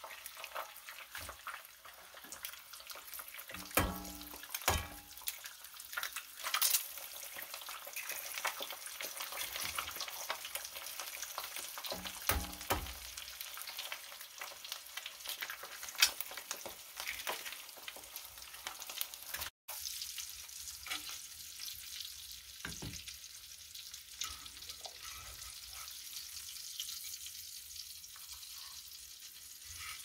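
Bacon and eggs sizzling in a cast iron skillet, a steady frying hiss. A few sharp knocks and clicks of utensils and eggs against the pan.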